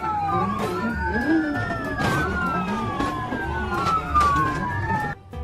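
Police siren wailing, several overlapping tones each gliding slowly up and down, over background music with a steady low beat.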